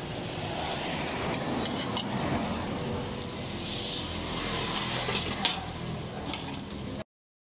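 Steady background hum of a street-side food stall with a few light clinks of dishes and metal utensils, one about two seconds in and another later on. The sound cuts off abruptly near the end.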